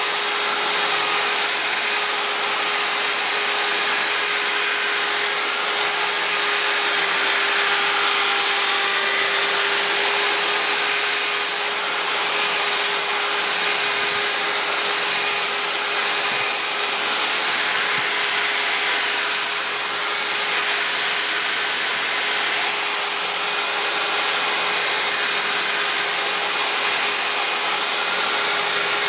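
Power drill running steadily, spinning a 3D-printed frother in a tub of foaming solution and churning it into thick foam for aircrete, with a constant motor hum under the whir.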